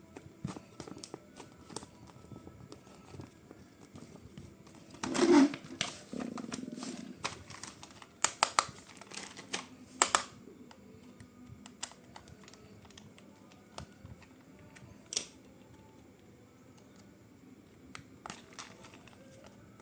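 Scattered clicks and light knocks of small objects being handled. A louder clattering burst with a dull thud comes about five seconds in, then a run of sharp clicks a few seconds later.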